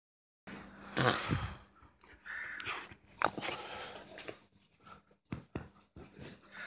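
A dog making a few short sounds among irregular knocks and rustles, the loudest burst about a second in.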